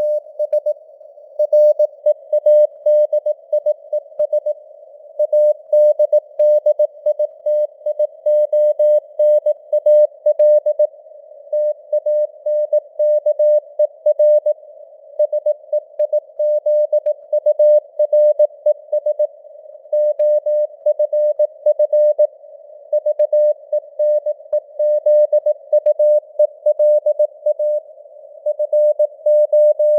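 Morse code (CW) sent at 18 words per minute: a single steady mid-pitched tone keyed on and off in dots and dashes, over a narrow band of simulated radio hiss that stays audible between the elements.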